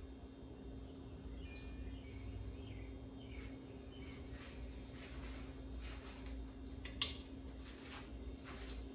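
Hunter Castleton ceiling fan running, a steady motor hum over a low rush of moving air; the fan's capacitor is bad. Faint bird chirps sound in the background, and there is a sharp click about seven seconds in.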